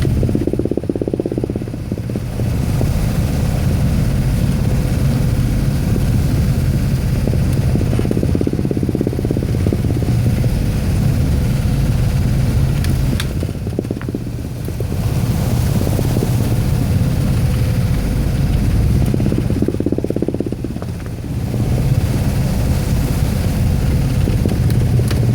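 A boat's engine running steadily at a constant speed, with a low hum and a steady tone, and a few brief dips in level.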